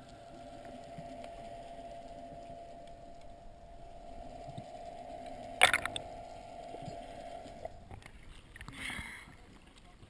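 Steady hum of a boat's engine heard underwater through a camera's waterproof housing, with one sharp knock about halfway through. The hum stops, and water splashes as the camera breaks the surface near the end.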